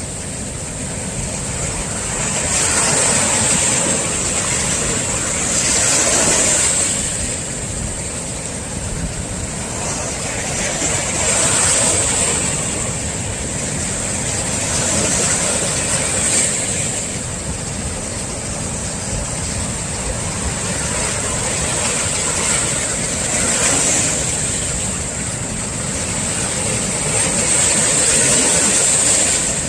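Sea surf from swell waves breaking on the shore, a continuous rush that surges louder every five or six seconds as each wave breaks.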